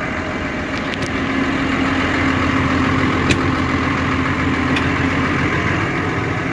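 New Holland tractor's diesel engine idling steadily, with a few light clicks.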